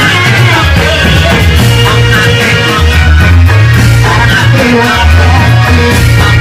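Loud Reog Bleknong accompaniment music played over large loudspeakers, with a heavy, pulsing bass line under a moving melody.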